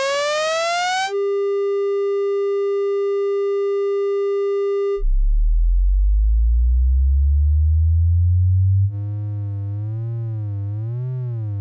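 Speaker-cleaning (water-eject) test tones: a short rising tone, then a steady buzzing tone held for about four seconds, then deep bass tones gliding slowly upward, and from about nine seconds in a warbling tone over a wobbling bass.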